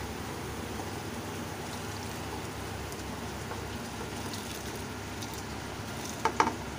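Pot of water at a rolling boil, bubbling steadily, as soaked rice is tipped in. Near the end there are a few sharp clinks.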